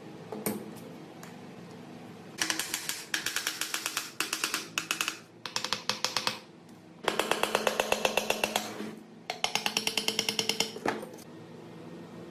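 Rapid, evenly spaced strokes of a tool working on metal, several a second, in six runs of about one to two seconds with short pauses between them.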